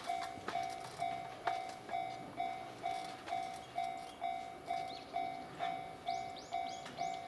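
Japanese railway level-crossing warning bell ringing in an even, ding-ding rhythm of about two strikes a second, signalling that a train is approaching. Near the end a quick run of five or six short high chirps sounds over it.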